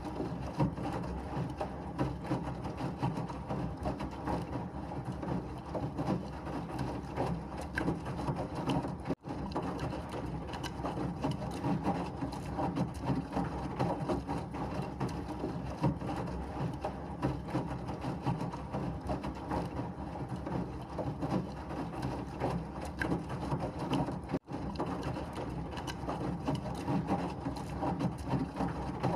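Washing machine running steadily, a dense churning and rattling mechanical noise used as white noise for babies. It cuts out for an instant twice, about nine and about twenty-four seconds in.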